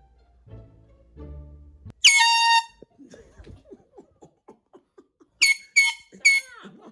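Handheld canned air horn blasting once, loud, for about half a second about two seconds in, then three more short, shrill blasts in quick succession near the end. Quiet background music plays at the start.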